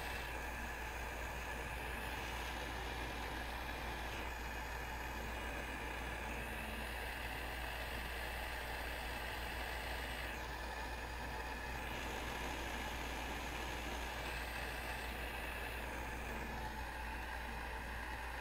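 Hot air rework station blowing a steady hiss of hot air from its nozzle onto a small surface-mount chip, reflowing the solder paste beneath it, over a low steady hum.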